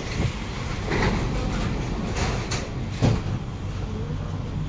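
Sliding doors of a Kawasaki-CRRC Sifang C151B metro train carriage closing, with a few knocks, the sharpest about three seconds in, over the steady hum of the train's equipment.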